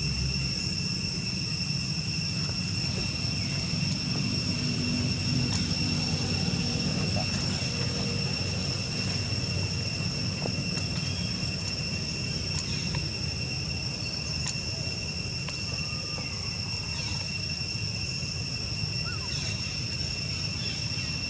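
Steady high-pitched insect drone holding two pitches, over a constant low rumble, with a few faint clicks and chirps.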